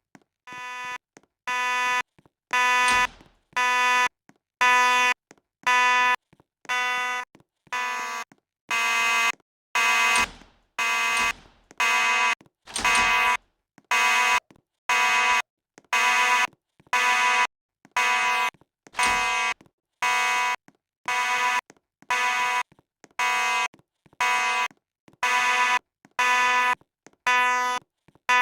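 Fire alarm sounding a harsh buzzing tone in even pulses, about one a second, growing louder over the first couple of seconds.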